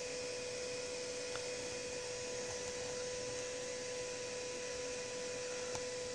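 Steady electrical hum: one constant tone with fainter higher tones over an even hiss.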